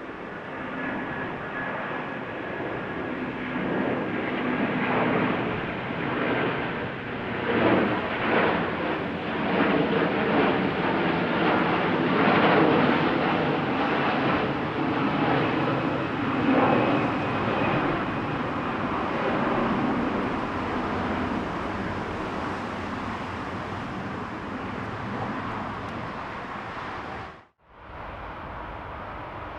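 Airbus A330-300's Rolls-Royce Trent 700 turbofans at takeoff thrust: a crackling jet roar that builds as the aircraft passes, is loudest in the middle and slowly fades. Near the end the sound cuts off abruptly and gives way to a quieter steady jet noise.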